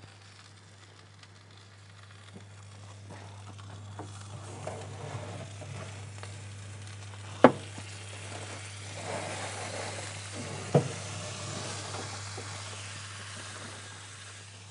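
Vegetable torly casserole sizzling and bubbling in a hot oven opened wide, the sizzle growing louder as the dish is uncovered. Two sharp knocks stand out, one about halfway through and another about three seconds later.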